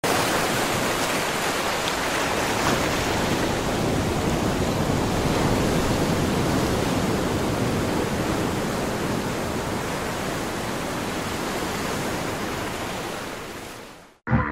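A steady rushing noise with no tune or beat, like static or surf. It swells slightly, then fades out near the end.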